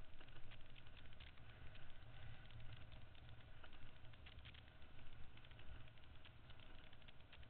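Motorcycle riding down a rough gravel track: a low, steady engine hum with frequent small clicks and rattles from stones and the bike over the bumps.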